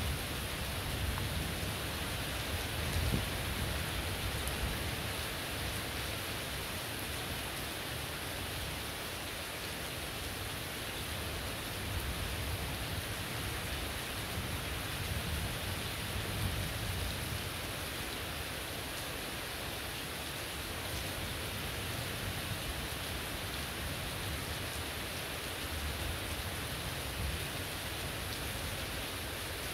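Heavy tropical rain pouring steadily onto roofs and wet ground, with a low rumble rising and falling beneath it.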